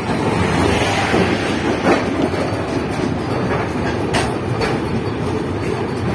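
Passenger train running at speed: a steady rumble of wheels on rails, with a few sharp clicks, the loudest about two seconds in and another about four seconds in. Heard from an open carriage window.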